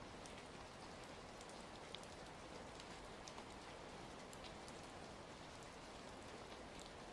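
Faint, steady rain with a crackling wood fire: an even hiss of rain dotted with scattered small sharp crackles.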